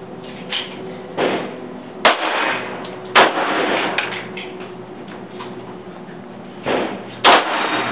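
Semi-automatic pistol fired three times, about 2, 3 and 7 seconds in, each sharp report ringing on briefly in the covered firing bay. Fainter bangs sound in between.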